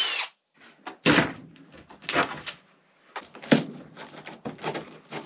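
A cordless drill/driver stops right at the start, its whine falling as it spins down. Then come a series of sharp knocks, bangs and scrapes as a wooden overhead shelf is worked loose from the bus wall.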